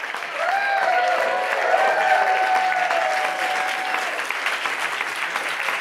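Audience applauding a live band, with several long whooping cheers over the clapping for the first few seconds.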